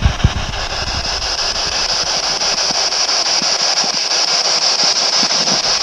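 A steady hiss with faint, scattered small clicks.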